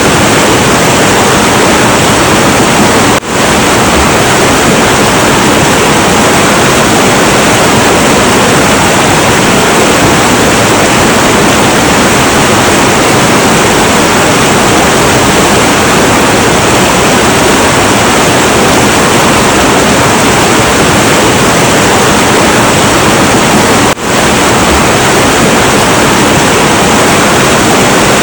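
Heavy, turbulent river water rushing, a loud, steady roar of flowing water. It drops out for an instant twice, about three seconds in and again about twenty seconds later.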